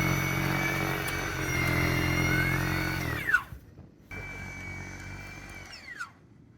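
Gas snowblower engine running steadily with a high whine above it. About three seconds in, the engine cuts and the whine drops away. After a short pause a quieter whine runs and falls away again near the end.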